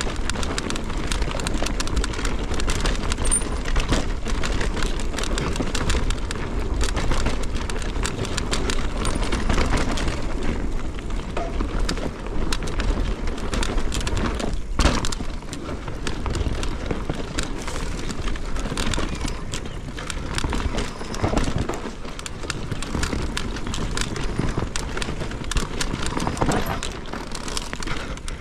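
Mountain bike riding fast down a rough dirt trail: tyres rumbling over the ground with a constant clatter of the chain and frame, and many small knocks from roots and bumps. One sharper knock comes about halfway through.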